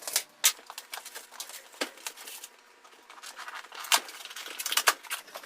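A cardboard wine-kit box being opened and unpacked by hand: irregular crackles, taps and rustles with a few sharp clicks, growing busier toward the end.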